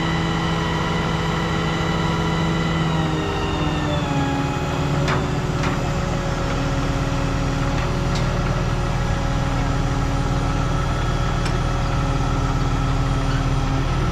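Heavy diesel engine running steadily; about four seconds in its pitch drops as it slows to a lower speed, then it holds steady. A few faint clicks sound over it.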